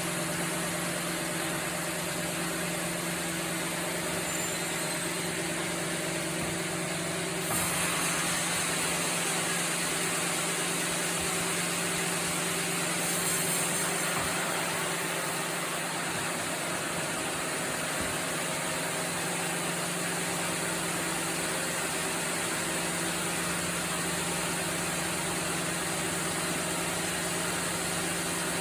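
Sawmill machinery running with a steady hum. A louder hiss comes in about seven seconds in and swells again around the middle.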